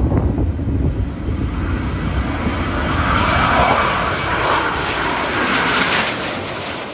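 Three Red Arrows BAE Hawk T1 jets with Rolls-Royce Turbomeca Adour turbofans flying low overhead in formation. Their jet noise is loud and steady and peaks about halfway through as they pass over.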